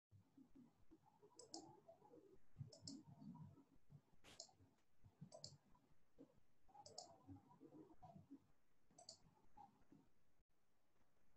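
Near silence with six faint double clicks, spaced a second or two apart.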